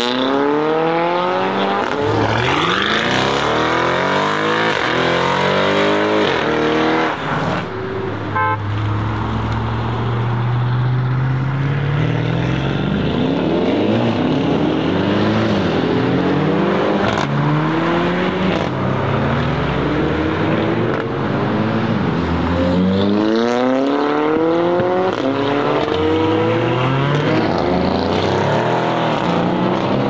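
Several performance cars accelerating hard away one after another, each engine's pitch climbing through the gears and dropping back at every shift. There is a short rattle of sharp pops about eight seconds in.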